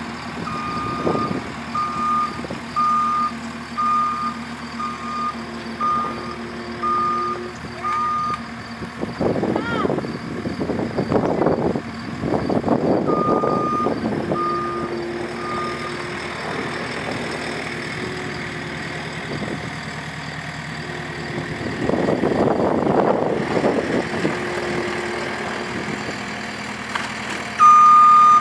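JCB skid steer's diesel engine running while its reverse alarm beeps about once a second in stretches as the machine backs up; in between, the engine gets louder for a few seconds as it works harder.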